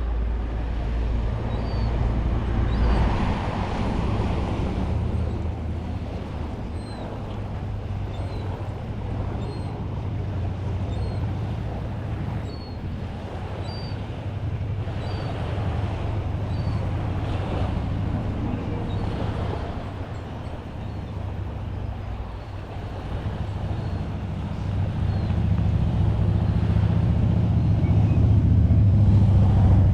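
Outdoor ambience dominated by a motor vehicle's engine hum that grows louder over the last few seconds, as if it is approaching, with faint short high chirps scattered throughout.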